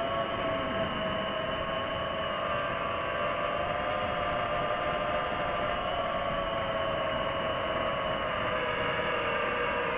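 Quadcopter drone's motors and propellers whining steadily in flight, several tones drifting slowly up and down in pitch over a hiss of noise.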